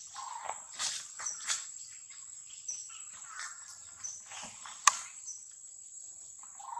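Forest ambience: a steady high insect drone with short high chirps repeating about once a second, over irregular rustling of dry leaf litter as the monkeys move about. A couple of brief squeaks come at the start and again near the end, and a single sharp click stands out about five seconds in.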